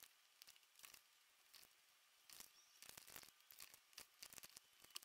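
Faint, irregular clicking of small plastic Pixo Bitz beads being picked out of a plastic compartment tray and set onto a clear plastic pegboard, a dozen or so light clicks.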